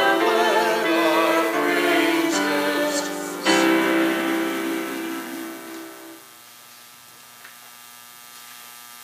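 Choir voices singing a sung piece of the service, which ends on a long held final chord that fades out about six seconds in. A faint steady electrical hum is left.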